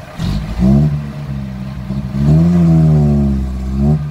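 Small six-wheel dump truck's engine revved hard in repeated pushes: a short rev about half a second in, a long one from about two seconds whose pitch climbs and then falls, and another starting near the end. The truck is stuck in soft dirt and the revs are its attempts to climb out.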